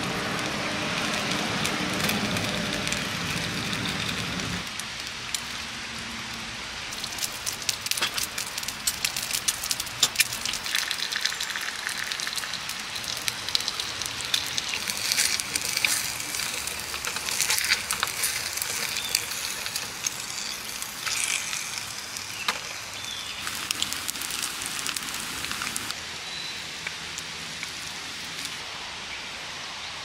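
Fire crackling, with many irregular sharp pops over a soft hiss. The pops are densest in the middle and thin out near the end, and a steady low sound underneath stops about four and a half seconds in.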